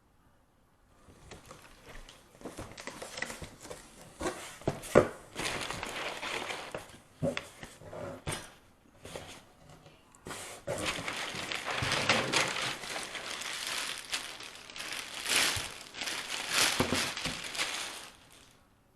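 Irregular crinkling and rustling, like something being handled, with scattered clicks and knocks, stopping shortly before the end.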